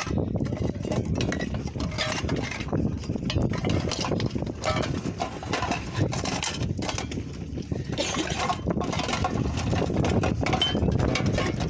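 Old metal tobacco tins clinking and knocking against each other as a hand rummages through them in a wicker basket, in many small irregular clicks.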